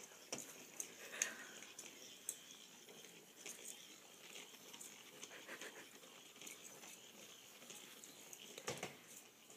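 Faint scattered light taps and patter from a puppy and a battery-powered weasel-ball toy moving about on carpet.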